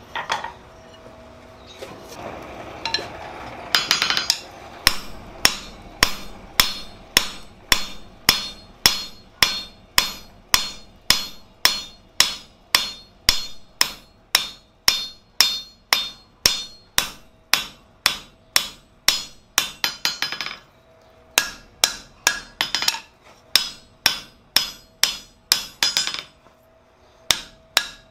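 A hand hammer strikes a red-hot steel crowbar on an anvil, forging it back into shape. The blows start about five seconds in and come in a steady rhythm of about two to three a second, each one ringing. There are two short breaks near the end.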